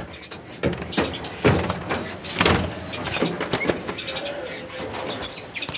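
Knocks, rattles and rustles of hands working a wire carrier cage while finches are caught, with a few short, high chirps from small finches (siskins and redpolls). The loudest chirp comes about five seconds in.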